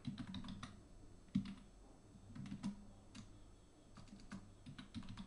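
Typing on a computer keyboard: irregular, quick keystrokes, with one sharper keystroke about a second and a half in.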